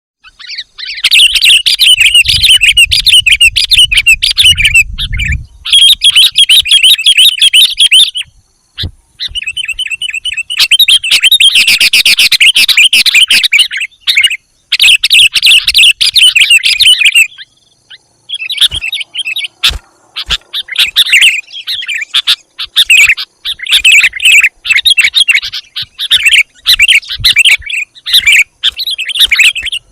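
Sooty-headed bulbuls (kutilang) calling in loud, rapid chattering bursts of several seconds each, with short pauses between. This is a busy call used as a lure to attract wild bulbuls.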